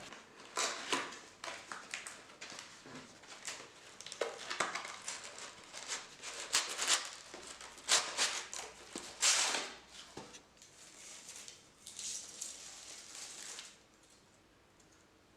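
Irregular rustling and light clicks of objects being handled, stopping shortly before the end.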